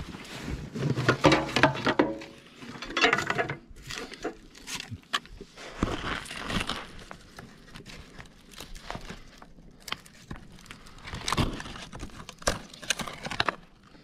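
Footsteps of a person walking through woods, an uneven run of crunches and rustles with louder steps here and there.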